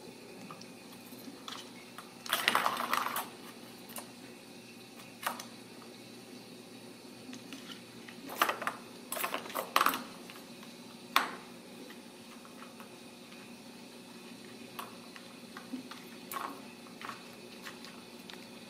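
Hard plastic clicking and clattering from a circular ball-track cat toy as kittens bat at it and the ball inside. It comes in short irregular bursts, the loudest about two to three seconds in, around nine to ten seconds in, and one sharp click a little after eleven seconds.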